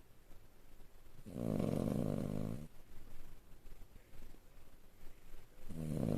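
Yorkshire terrier snoring: a long snore about a second in, and another starting near the end, about four seconds apart.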